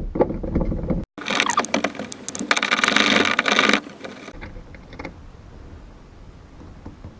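Metal tool noises as a bolt is worked loose on the 2CV's roof fixing: a few seconds of rapid clicking and scraping, starting after a short break about a second in, then a few quieter clicks and knocks.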